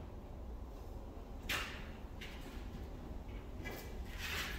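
Dodge Dart's driver door being opened: a short rustle about a second and a half in, then a faint squeak near the end, over a low shop hum.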